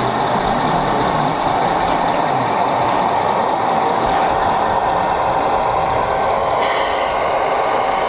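Radio-controlled model tow truck driving, with a steady truck-engine sound whose pitch rises and falls in the first couple of seconds, and a short hiss like an air brake about seven seconds in.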